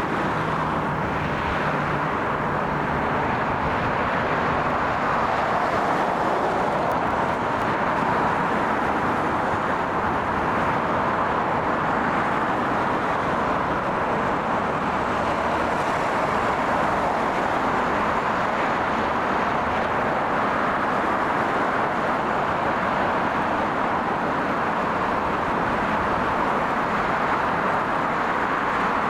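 Steady, unchanging engine noise, an even rushing hum with no distinct events.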